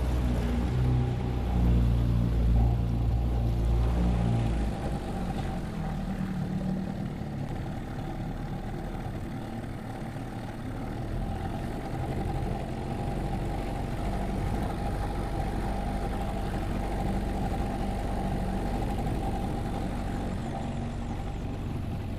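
Small boat's outboard motor running steadily. It is louder for the first four seconds or so, then eases to a lower, even drone.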